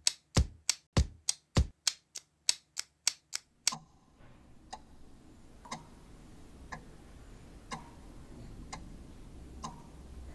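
A rapid run of sharp knocks, about three a second and speeding up, stops suddenly nearly four seconds in. Then a dripping tap: single drops of water fall into a sink about once a second, each a short click with a faint ring.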